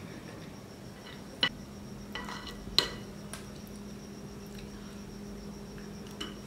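A metal spoon clinks and scrapes against a glazed clay plate of halwa: a handful of light, separate clicks, the sharpest about three seconds in, over a faint steady hum.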